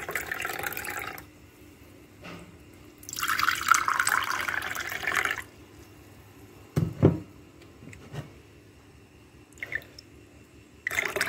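Green mojito juice poured into a stemmed glass: a short splashing pour, then a louder pour of about two seconds, then a dull knock about seven seconds in, and another pour starting near the end.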